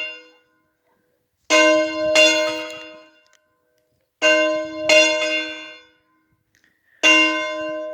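Church bell rung three times, about two and a half seconds apart, each stroke ringing out and fading away. The first two strokes are each followed by a second clapper strike less than a second later, and the tail of an earlier stroke is still fading at the start.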